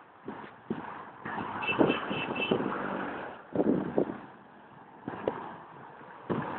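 Street traffic passing in a morning jam, with vehicles swelling past and fading. Near two seconds in, four short high beeps sound in quick succession.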